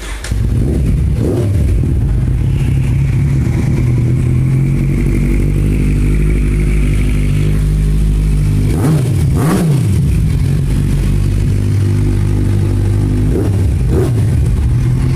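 Kawasaki Z1000's inline-four engine idling steadily, with a couple of quick throttle blips about nine seconds in and a smaller one near the end.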